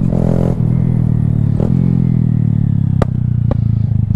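Honda Grom's single-cylinder engine running on the road with its pitch slowly falling as it slows, broken by a few sharp clicks. From about three seconds in the sound turns choppy and uneven.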